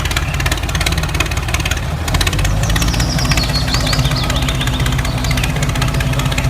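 An engine or motor running steadily with a rapid, even pulsing.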